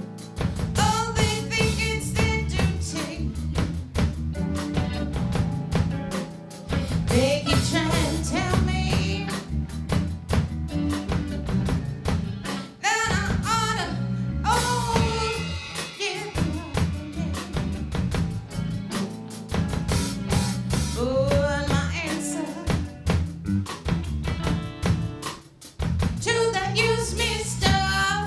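A singer performing with a band: sung vocals over a drum kit and a steady low bass line.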